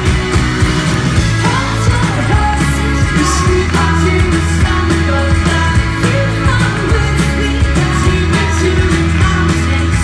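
Live indie folk-rock band playing with acoustic and electric guitars, drums and keyboards, with singing over the band from about a second and a half in.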